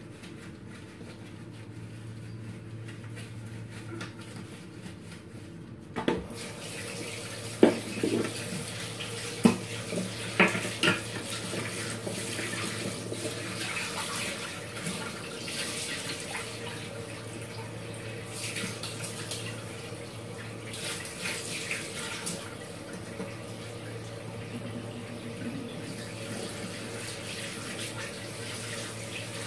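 Kitchen tap turned on about six seconds in and running steadily into the sink, with several sharp knocks and clatters in the seconds after it starts. A low steady hum runs underneath.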